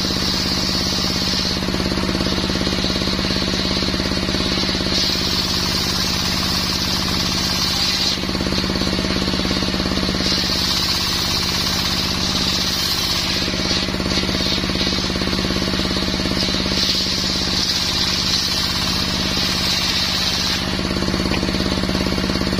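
Small brush-cutter engine driving a steel circular saw blade through mahogany, running steadily, with a high whine that comes and goes several times.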